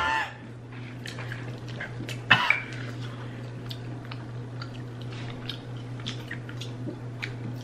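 A short cough about two seconds in from a person eating Carolina Reaper pepper jerky, the heat catching in the throat. Faint small clicks are scattered throughout over a steady low hum.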